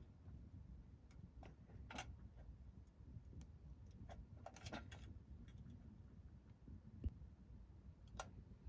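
Near silence: a low background rumble with a few faint, irregular clicks spread through it.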